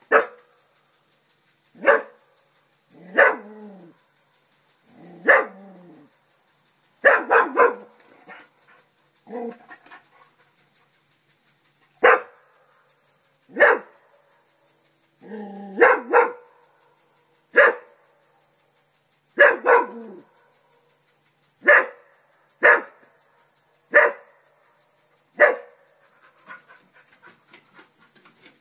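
English Springer Spaniel alarm barking at a turtle it takes for an intruder: single sharp barks every second or two, sometimes two or three in quick succession, with panting between them.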